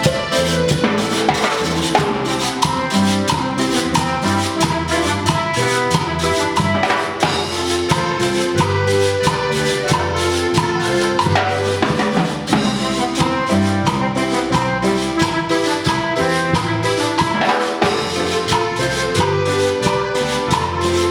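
Cumbia band playing with a drum kit and percussion keeping a steady beat under bass and melody instruments.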